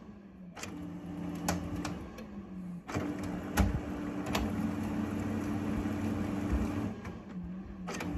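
Brother DCP-9020CDW colour laser printer's internal mechanism starts up about half a second in and runs with a steady hum and scattered clicks. It stops briefly near the end, then starts again. This is the printer's busy cycle while it shows "Please wait" after the toner setting was reset.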